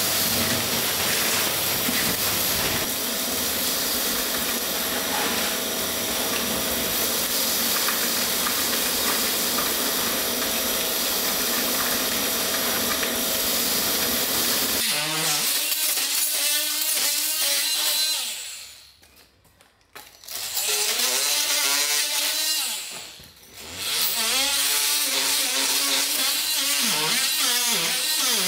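A shop vacuum runs steadily, sucking up dust from a stone floor. About fifteen seconds in it gives way to a Ryobi oscillating multi-tool scraping old concrete off the surface of flagstones, its buzz wavering in pitch with the load and stopping briefly twice.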